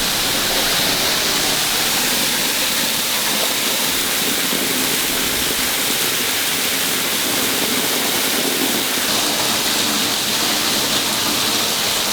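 Waterfall pouring, heard up close as a steady, loud rush of falling water.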